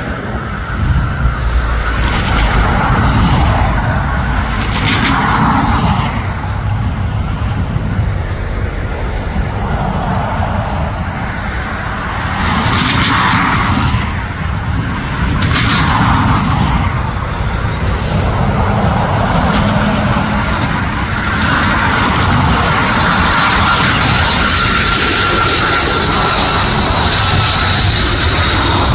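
Jet airliner engines running: a loud low rumble, joined about two-thirds of the way through by a steady high-pitched whine.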